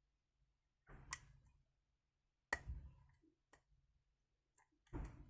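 Metal lock pick and tension bar working the pins of a 5-pin Viro lock cylinder that is in a false set: a few faint, sharp clicks with light scraping, the loudest about two and a half seconds in.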